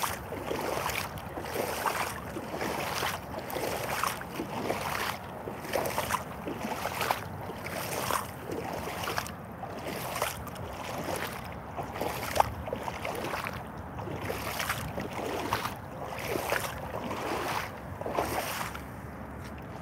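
Irish Setter rubber boots wading through shallow muddy water, splashing with each step in a steady rhythm of about two steps a second.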